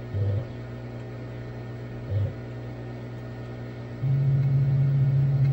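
Stepper motors of a Cue Demon CNC machine humming as the axes are jogged into position: two short jog moves, then a longer, louder move starting about four seconds in.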